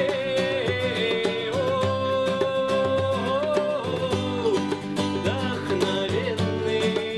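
Live folk band playing: a violin carries a held, sliding melody over strummed acoustic guitar and the steady beat of a hand-held frame drum.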